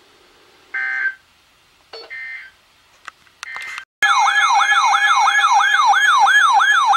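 Three short buzzy EAS digital data bursts, then about four seconds in a loud weather-radio alert siren: a tone sweeping downward about three times a second over a steady lower tone, the alarm that signals an incoming warning.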